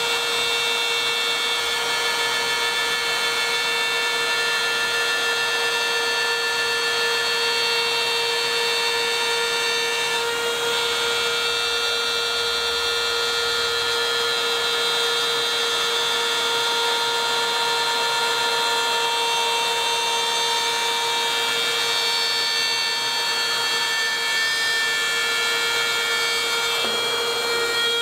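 Parkside PRSA 20-Li A1 cordless rotary drywall cutter running steadily at about 30,000 rpm, its 1/8-inch bit routing a curved cut through plasterboard: a steady high whine with a dust-extraction vacuum drawing through the hose clamped to the tool.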